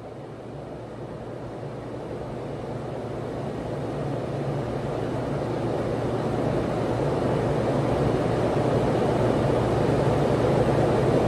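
Steady ventilation noise, a low hum under rushing air, growing gradually louder.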